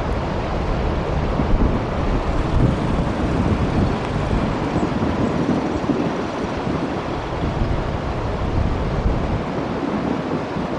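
Wind blowing across the microphone: a steady rush with uneven low buffeting.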